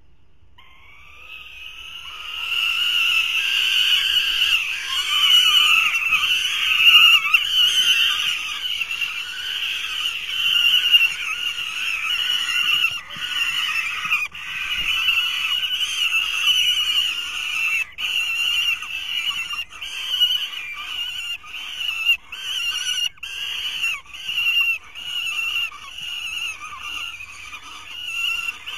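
Several young falcons screaming harsh, insistent food-begging calls as prey arrives at the nest, a sign of hunger and competition between the chicks. The calling starts about half a second in and builds within a couple of seconds into a loud, continuous chorus. Later it breaks into rapid separate screams.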